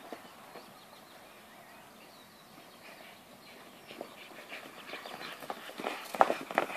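Horses galloping on grass: hoofbeats faint at first, then growing louder and quicker to follow in the last few seconds as they close in.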